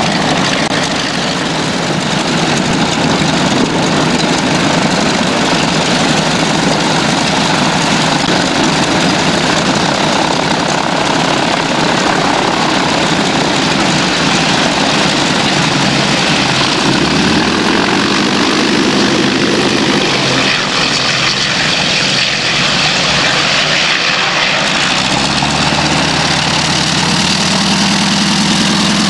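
Propeller-driven aircraft engines running loudly and steadily, with a steadier, deeper engine note coming in about seventeen seconds in and again near the end.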